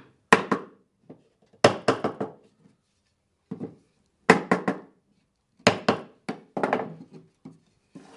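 A small hammer knocking on the rails and corners of a wooden picture frame, driving its mortise-and-tenon joints tight: sharp wooden knocks in quick groups of two to four, one group every second or so.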